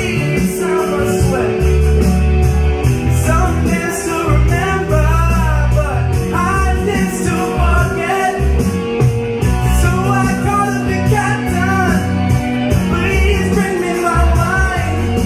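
A singer performing live into a handheld microphone over loud backing music with a steady, heavy bass line.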